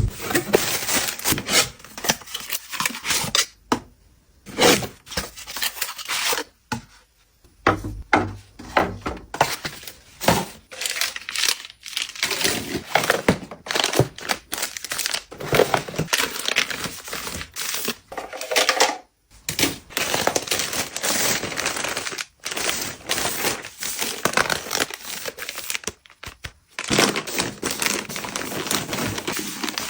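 Packaging being handled during an unboxing: wrapping crinkling and tearing in irregular bursts with short pauses.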